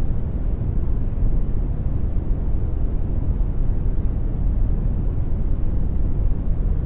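Steady synthetic brown noise: an even, deep rumbling hiss with most of its weight in the low end and no changes.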